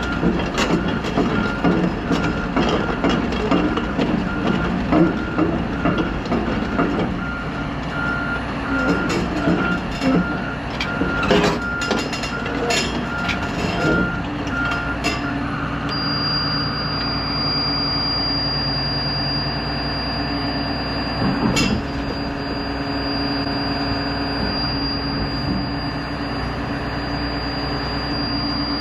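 Heavy equipment backup alarm beeping in a steady on-off pattern over a diesel engine running, with scattered metal clanks. About halfway through the beeping stops and a steady engine drone carries on, broken by one sharp knock.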